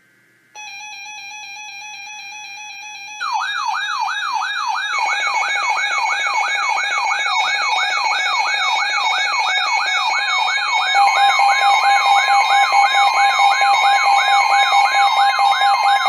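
Several weather alert radios sounding their alarms for a severe thunderstorm warning. A steady tone starts about half a second in. About three seconds in, a rapid rising-and-falling siren-like warble of about three sweeps a second joins it over steady tones, and the whole gets louder again later on.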